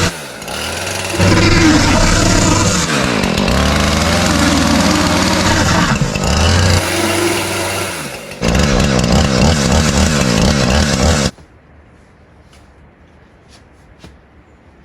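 Small petrol engine of a handheld power tool being revved hard and let drop back several times, its pitch sweeping up and down. It cuts off abruptly about 11 seconds in, leaving a few faint ticks.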